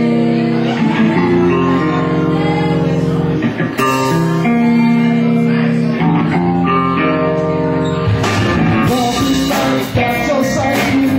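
Live rock band playing a song's instrumental intro: electric guitars ring out held chords, changing every second or two. About eight seconds in the drums and cymbals come in and the full band plays on.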